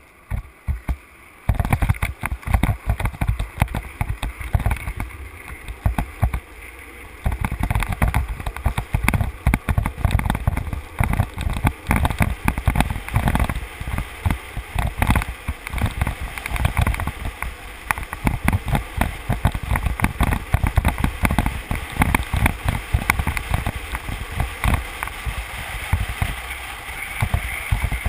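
Wind buffeting a helmet-mounted camera microphone, mixed with the rumble of street luge wheels rolling fast on asphalt. It is a rough, gusting rush full of rapid crackles, a little quieter for a moment about five seconds in, then louder again.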